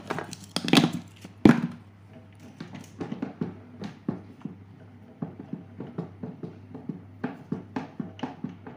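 Footsteps on gravel, an even run of short crunching steps about three a second, over a faint steady low hum. A few louder knocks come in the first couple of seconds.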